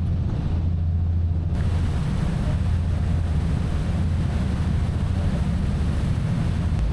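Ferry's engine running with a steady low drone, joined about a second and a half in by a loud rush of wind on the microphone and sea wash.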